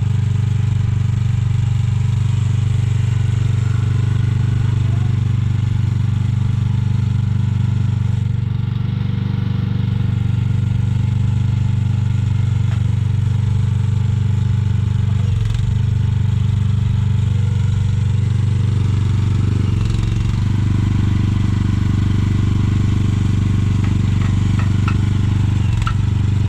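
Mini excavator's engine running steadily at a constant speed, a loud, even low hum.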